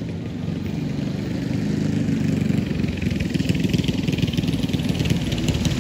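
Mini bike engine running, getting louder from about two seconds in as a bike comes closer, with a fast rattle over it.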